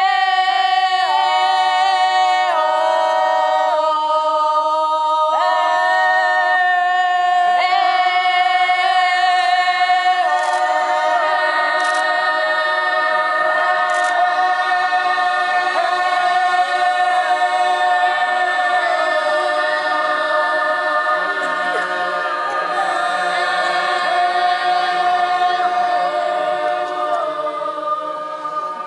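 A group of voices singing unaccompanied in several parts, holding long notes and moving between pitches together; the singing grows fuller about ten seconds in.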